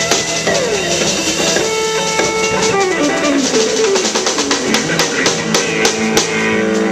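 Live rock band playing electric guitars, bass and drum kit through the PA, in the closing bars of a song. Guitar lines slide downward through the middle, and the drums hit a quick run of accents near the end.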